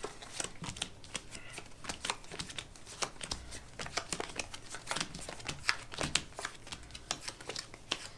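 Mesozooic game cards being slid, picked up and set down on a cloth-covered table by several hands at once: a busy, uneven patter of light clicks and rustles.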